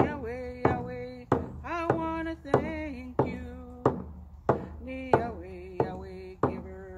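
Hand drum struck with a beater at a steady beat, about three strikes every two seconds, while a woman sings in long held notes over it.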